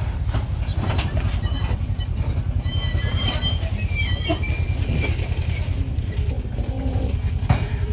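Nissan Xterra engine running in a low steady rumble as the truck crawls slowly over sandstone ledges. A few sharp clicks and knocks come from the tyres and stones on the rock, with one louder knock near the end.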